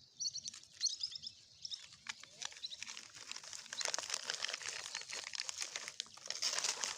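Small birds chirping in quick repeated calls over the first couple of seconds, then plastic crinkling and rustling from about halfway on, as old plastic rubbish is handled and stuffed into a collection bag.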